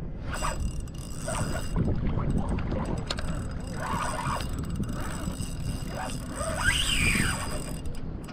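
Wind rumbling across the microphone over water lapping around a person wading in shallow water, with a brief rising-and-falling tone near the end.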